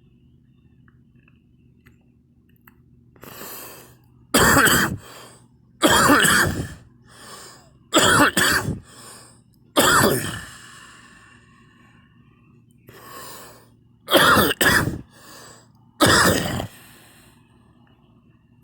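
A person coughing hard in repeated bouts, with a harsh cough every one to two seconds and quieter coughs and breaths between them.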